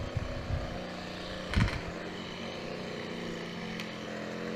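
An engine running steadily at an even speed, with a few low thumps near the start and a short rustling burst about one and a half seconds in.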